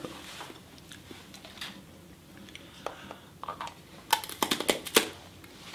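A crisp snack being bitten and chewed: a few faint clicks, then a quick run of sharp crunches about four seconds in.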